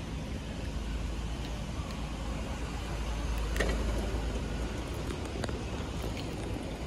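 Steady low rumble of a bicycle being ridden on wet pavement, with a sharp click about three and a half seconds in.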